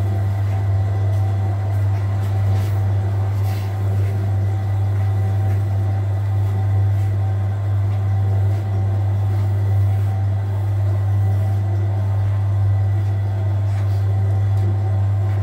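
Commercial bakery dough mixer running steadily with a deep, even motor hum while it mixes a large batch of bread dough.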